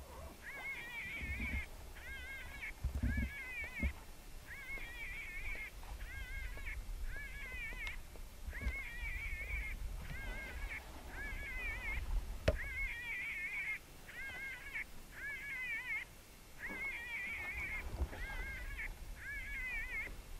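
Electronic predator caller playing a looped animal distress call to lure jackal: wavering, high-pitched cries repeating about once a second, with short gaps between them. Underneath is a low rumble.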